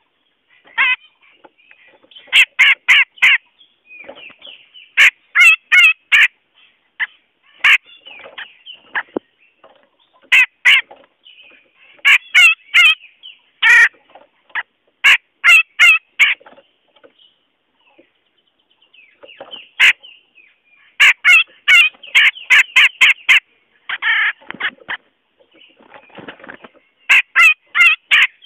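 Cucak jenggot, a crested Alophoixus bulbul, giving bursts of harsh, rapid chattering notes, about five a second, in clusters broken by short pauses, with a longer gap a little past the middle. This is a lure call of the kind played to draw wild birds down.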